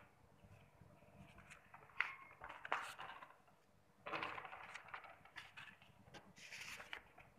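Faint paper rustling from book and notebook pages being handled, with a couple of sharp light knocks about two seconds in and two bursts of rustling in the second half.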